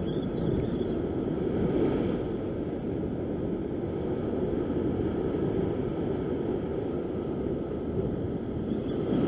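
Steady rush of heavy surf surging and foaming against a rock ledge, mixed with wind buffeting the microphone.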